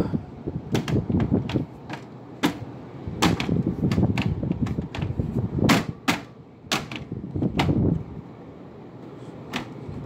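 Irregular clicks, knocks and rustling from handling the phone and the fabric close to the microphone. Under them runs the steady noise of the Friedrich window air conditioner's fan in fan-only mode, with the compressor off.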